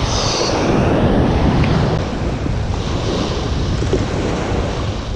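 Small surf waves breaking and washing up the sand, with wind buffeting the microphone.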